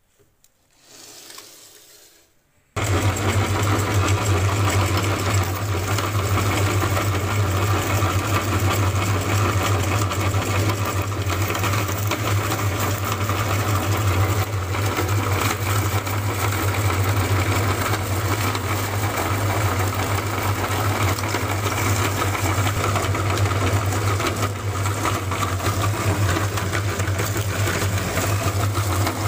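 Electric meat grinder starting up about three seconds in and running steadily with a strong low hum, grinding hard-candy lollipops into powder as they are fed into the hopper.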